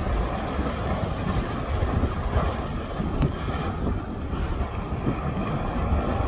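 Lava fountaining from an erupting volcanic cone: a steady rushing noise of splashing, spattering lava with a few faint cracks, mixed with wind on the microphone.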